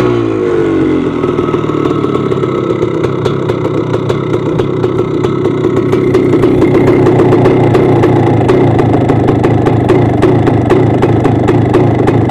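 1981 Husqvarna 430CR's single-cylinder two-stroke engine. Its revs fall back from a throttle blip in the first second, and it then settles into a steady idle with a fine, even popping. The idle gets a little louder about six seconds in.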